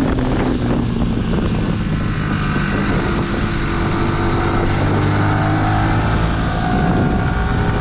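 Yamaha R15's 155 cc single-cylinder engine running while the motorcycle is ridden at road speed, with steady wind noise on a helmet- or bike-mounted camera microphone. The engine note climbs gently in the second half as it pulls in gear; the engine is new and still being run in.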